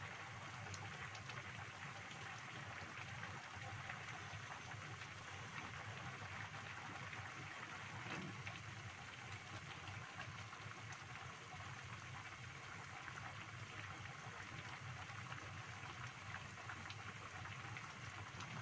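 Pan of chicken-feet and vegetable soup boiling on a gas stove: a steady bubbling, crackling hiss with faint scattered pops.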